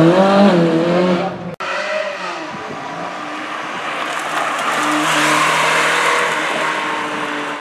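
A Ferrari V8 engine revving as a car pulls away, its pitch climbing. After a cut, a Ferrari 360 Modena's V8 runs through a tight turn, with tyres squealing from about four seconds in to near the end.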